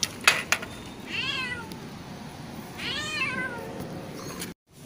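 A stranded cat meowing twice, about a second and three seconds in, each cry rising then falling in pitch. Two sharp clicks sound near the start.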